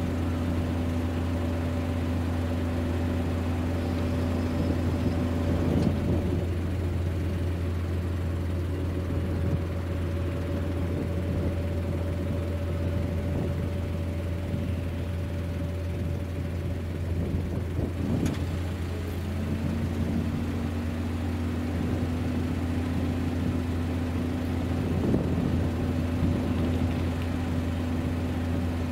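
An engine idling steadily with a low hum; a tone in it drops away a few seconds in and comes back at a slightly different pitch about two-thirds of the way through.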